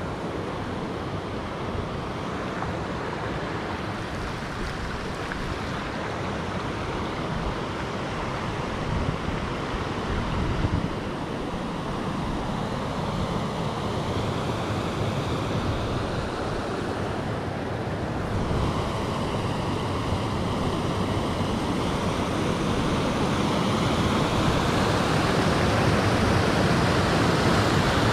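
River rapids rushing over rocks and boulders, a steady wash of water that grows gradually louder toward the end.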